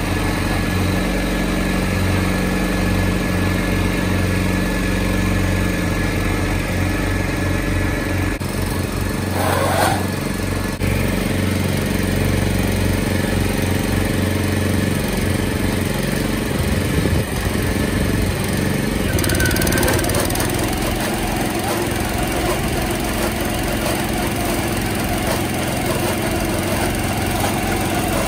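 A Salsco round bale wrapper's small gas engine running steadily alongside a John Deere tractor's diesel engine at idle, with a brief rushing noise about ten seconds in. From about twenty seconds in the engine note changes as the wrapper turns the bale and stretches plastic film around it.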